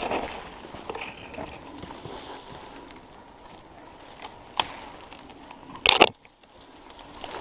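Dry scrub and branches rustling and scraping as a person pushes through dense brush by hand, with a few sharp cracks of twigs and branches against the body; the loudest comes about six seconds in.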